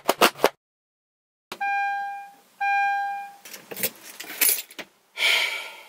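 A book's pages flicked rapidly, then after a short silence two long electronic beeps, each a steady tone lasting just under a second. Scattered clicks follow, and a short rushing noise comes near the end.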